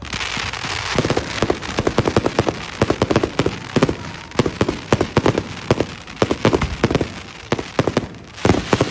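Fireworks going off: a dense crackle that starts suddenly, with many sharp bangs in rapid succession, several a second.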